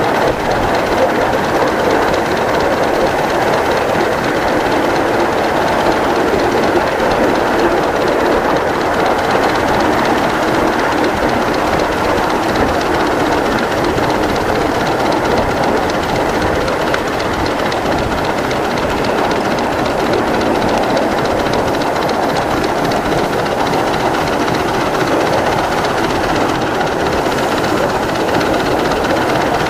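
A 1-inch-scale live-steam Pacific locomotive and train running steadily along miniature track: a loud, even rush of running noise with the wheels clattering on the rails.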